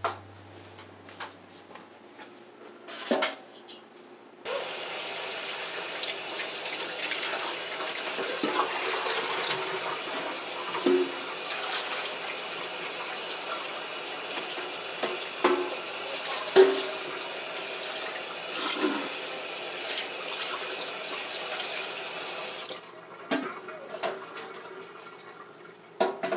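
Kitchen tap running into a sink, turned on about four and a half seconds in and off about three and a half seconds before the end. A few knocks and clunks of things handled in the sink, the loudest about two-thirds of the way through.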